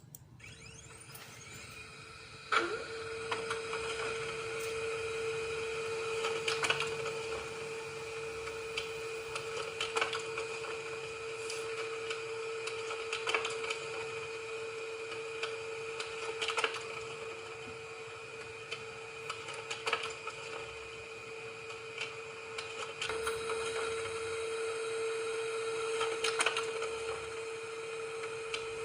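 Printer running: a steady mechanical hum with irregular clicks and knocks as it prints.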